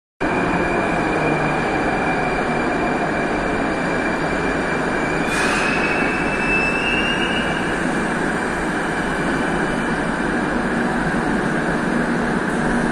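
Moscow Metro train running along the station platform: a loud, steady rumble of wheels and motors, with a thin whine that rises slightly in pitch around the middle.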